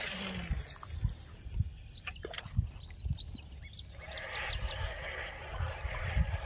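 Fishing rod and reel on a spoon cast: a falling hiss as line runs off the spool at the start, then the reel being cranked with a steady whir from about four seconds in to retrieve the spoon. Small birds chirp over it.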